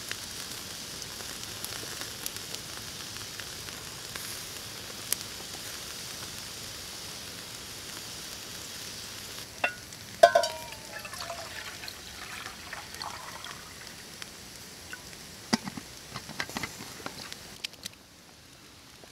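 Steaks sizzling on a stick grill over hot embers: a steady hiss with scattered crackles. About ten seconds in comes a short pour of liquid from a thermos into a steel mug, and near the end a few knocks as the wooden grill is handled.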